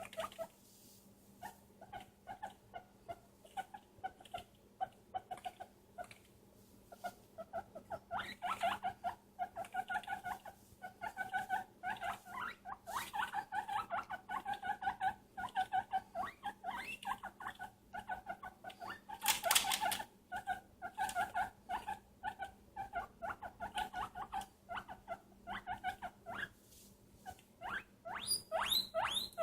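A pet animal squeaking in long runs of short, quick squeaks, sparse at first and almost continuous from about a third of the way in. There is a brief louder rustle about two-thirds of the way through.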